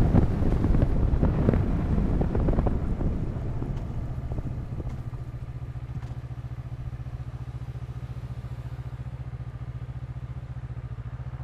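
Wind rush from riding fades over the first few seconds as the motorcycle slows, leaving the motorcycle engine idling steadily with a low, even pulse.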